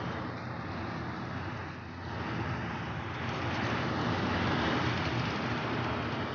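A steady rushing noise that grows gradually louder from about two seconds in, with faint high tones in the first two seconds.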